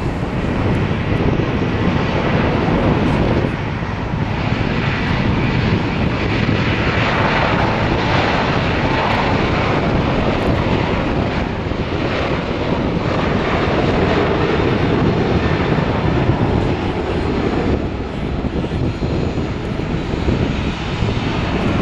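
Boeing 737-800's CFM56-7B turbofan engines at takeoff thrust during the takeoff roll: a loud, steady jet noise that turns brighter and hissier as the aircraft passes, about halfway through, then grows duller as it moves away.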